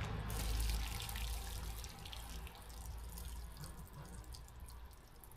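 Water trickling and dripping, a scatter of small drips and crackles that fades away.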